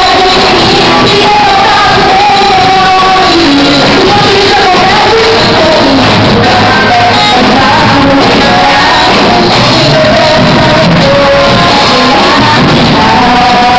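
Loud live gospel worship music with singing over a full band backing.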